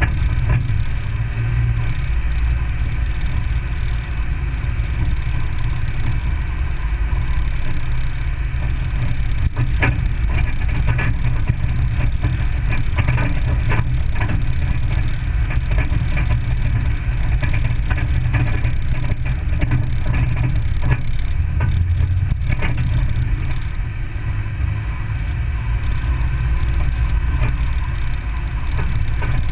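Vehicle driving slowly on a gravel road: a steady low rumble of engine and tyres, with scattered clicks and knocks from gravel and bumps, most of them in the middle of the stretch.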